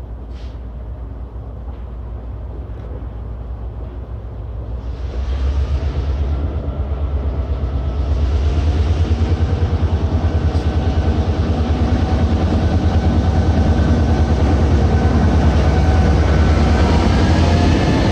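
EMD GP38-2 diesel-electric locomotive approaching and passing close by, its non-turbocharged V16 diesel engine running with a rhythmic low throb. It grows louder about five seconds in and again about eight seconds in as the locomotive draws alongside.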